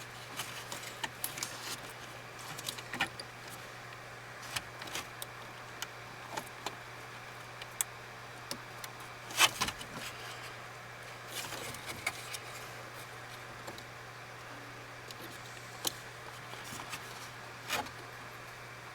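Scattered plastic clicks, taps and knocks as hands handle dash parts and a wiring plug, with one louder knock about halfway through, over a steady low hum.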